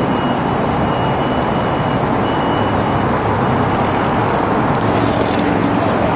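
Steady outdoor traffic noise. A faint high steady tone runs through the first three seconds, and a few sharp clicks come about five seconds in.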